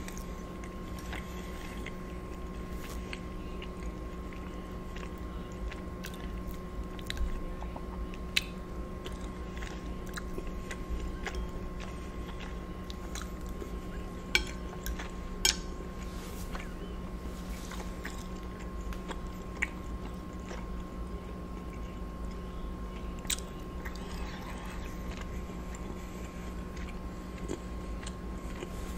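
Close-miked chewing and mouth sounds of a person eating lobster ravioli in lemon butter sauce, with a few sharp clicks here and there, the loudest about halfway through. A steady low electrical hum runs underneath.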